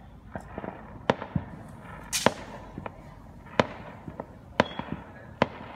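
Aerial fireworks bursting: a run of about ten sharp bangs at irregular intervals, the loudest a little over two seconds in with a brief crackling hiss after it.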